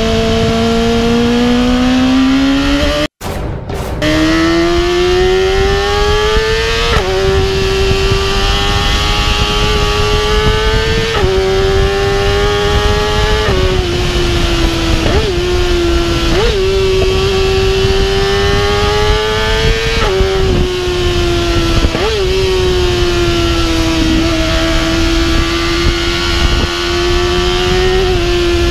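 BMW S1000 RR inline-four engine pulling hard at speed, its pitch climbing slowly and stepping down at each of several upshifts, over heavy wind and road rush. The sound drops out briefly about three seconds in.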